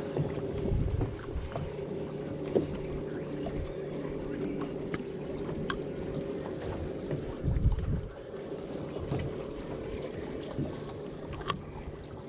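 Sounds aboard a small fishing boat: a steady low hum, wind gusting on the microphone about a second in and again near eight seconds, and a few light knocks.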